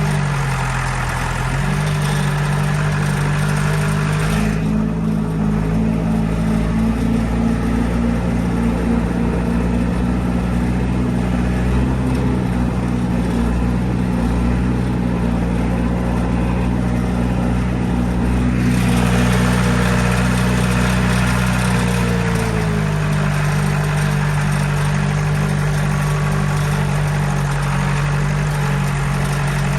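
John Deere 95 combine running at harvest, a steady engine drone with mechanical clatter and hiss on top. The engine note dips and recovers about a second in and shifts lower about three quarters of the way through. The high hiss and clatter fall away for a long stretch in the middle.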